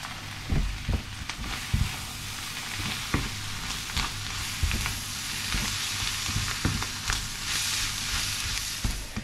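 Chickpeas, onions and sea samphire sizzling in a frying pan as a wooden spoon stirs them in with the spices. The spoon knocks against the pan at irregular moments over the steady sizzle.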